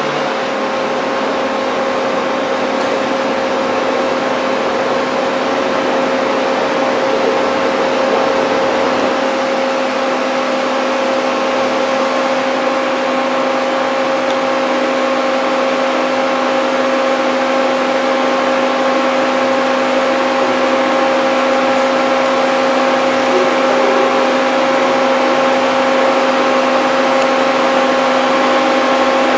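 Large gantry CNC drilling machine running at a steady pitch: a constant machine hum made of several steady tones over an even hiss, with no pauses or changes.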